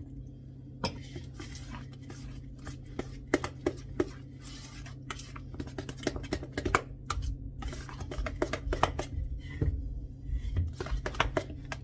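A utensil clinking and scraping against a stainless steel mixing bowl as pancake batter is stirred by hand, in quick irregular strokes that come thicker in the second half.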